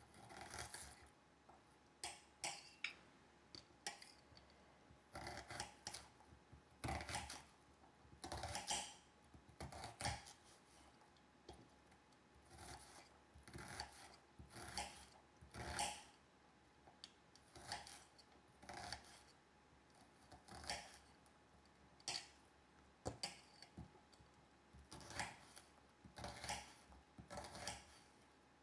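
Kitchen knife cutting yellow onion into small cubes: slow, uneven cuts, about one or two a second.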